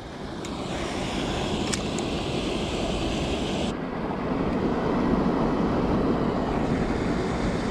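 A mountain creek rushing steadily over rocks, with wind noise on the microphone.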